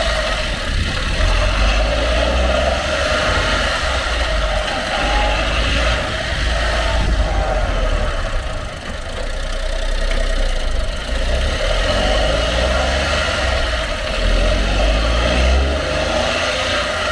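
Honda Acty Truck HA9's three-cylinder 660 cc engine running as the truck moves, with a steady low rumble under a wavering mid-pitched drone. The engine pitch rises a couple of times in the last few seconds.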